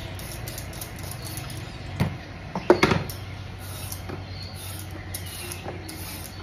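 Carrot being peeled over a plastic bowl: faint short scraping strokes, with a brief louder sound a little under three seconds in.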